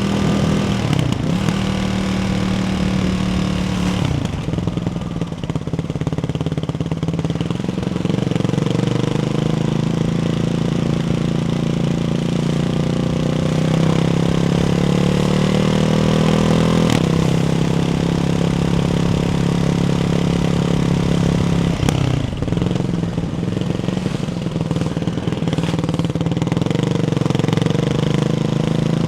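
Ducati Hypermotard 698 Mono's single-cylinder engine running through a baffled Termignoni exhaust while ridden at varying revs. The pitch climbs steadily for several seconds in the middle, with brief drops in revs near the start, about four seconds in and about twenty-two seconds in.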